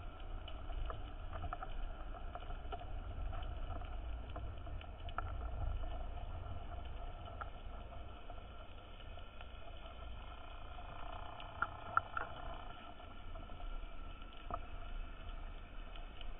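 Underwater ambience heard through a diving camera: a steady low rumble with faint steady tones and scattered clicks and crackles. A couple of sharper clicks stand out about twelve seconds in.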